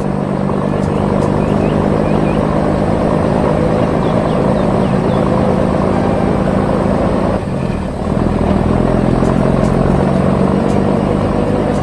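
Truck engine running steadily, with a brief dip in the sound a little before eight seconds in, then carrying on.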